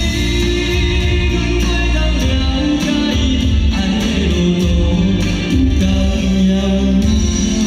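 A Taiwanese-language pop song performed live over a loud PA: sung vocals over band accompaniment with keyboard and strong bass, heard from the audience.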